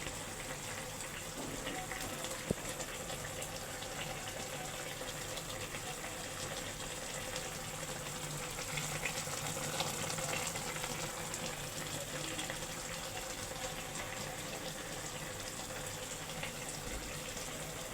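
Water running steadily from a tap, with a few small clicks.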